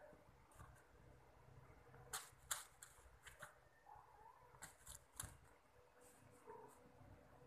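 Near silence with a faint steady hum, broken by a handful of short, sharp clicks and rustles between about two and five seconds in.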